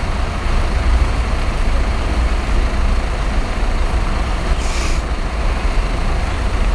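Steady low rumble of road traffic, with a short hiss about four and a half seconds in.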